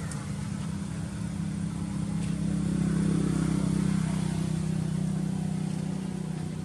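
A motor vehicle's engine running with a steady low drone. It grows louder about two seconds in and eases off again after about five seconds, like a vehicle passing.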